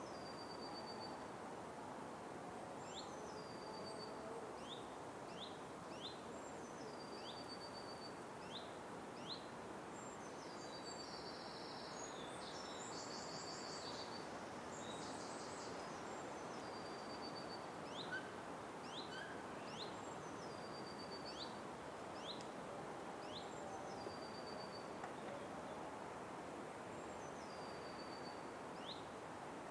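Forest night ambience: short high chirps and a call that drops and then holds a high trilled note, repeating every few seconds over a steady soft hiss. A busier cluster of high calls comes about a third of the way in.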